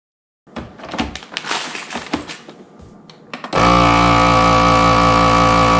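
Plastic vacuum bag rustling and clicking as it is fitted into a countertop vacuum sealer and the lid is pressed shut. About three and a half seconds in, the sealer's vacuum pump starts with a loud, steady hum as it draws the air out of the bag.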